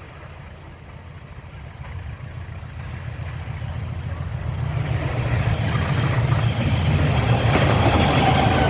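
A train approaching on the line, its low rumble and the rush of the running gear growing steadily louder as it nears.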